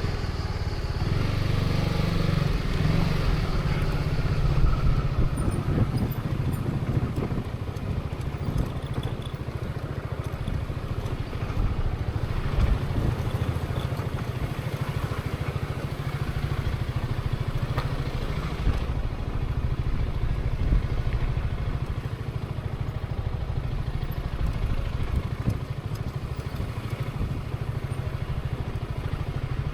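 Zontes 350E's single-cylinder engine running steadily at low, fairly even revs, heard from the rider's position.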